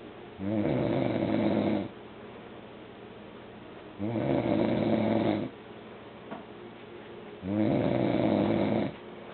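A sleeping man snoring: three long snores, each about a second and a half, coming roughly every three and a half seconds.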